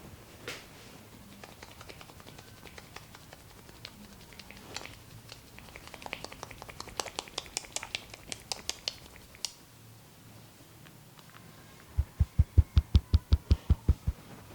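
Indian head massage: fingers rubbing and scratching through hair on the scalp, a crackle of many small clicks that grows denser about halfway through. About three seconds before the end it changes to hands tapping rapidly, about seven low thumps a second.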